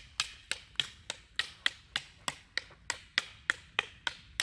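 Eskrima sticks clacking together in a partner drill: sharp, evenly paced wooden strikes, about three a second.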